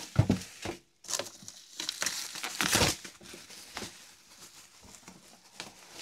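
Bubble wrap crinkling and rustling as a wrapped hi-fi deck is handled and turned over, in irregular bursts. A dull thump about a quarter second in, as the unit is set down.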